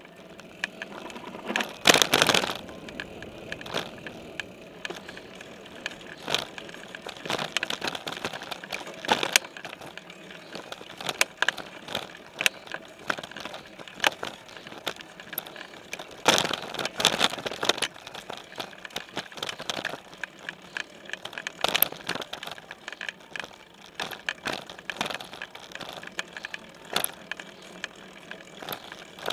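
Specialized Stumpjumper mountain bike riding dirt singletrack, heard through its frame: tyres rolling on the trail with frequent knocks and rattles as the bike goes over bumps. The loudest clatters come about two seconds in and again around the middle.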